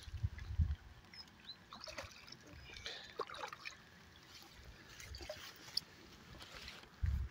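A hooked trout splashing at the water's surface while being played on a spinning rod, not yet tired. Scattered small splashes and clicks, with a low thump near the end.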